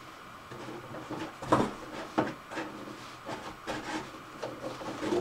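Scissors cutting through a corrugated cardboard box, a series of short rasping cuts about every half second from about a second and a half in.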